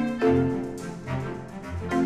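Background music led by bowed strings, with a new chord coming in shortly after the start.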